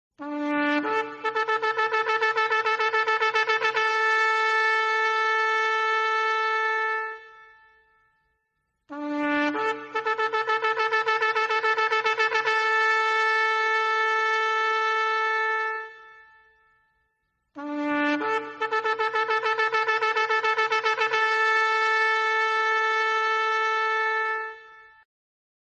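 Shofar sounded three times in a row. Each call opens with a short low note that jumps up in pitch, breaks into a rapid run of quick pulses, and ends in a long held blast that fades out.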